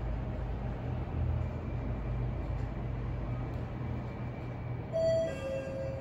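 Mitsubishi elevator car running with a steady low rumble. About five seconds in, its arrival chime sounds two descending tones as the car reaches floor 16.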